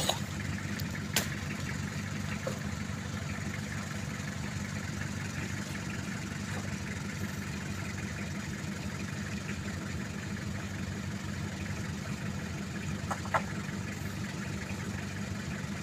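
Mitsubishi L300 pickup's engine idling steadily, with a sharp tap about a second in and another near the end.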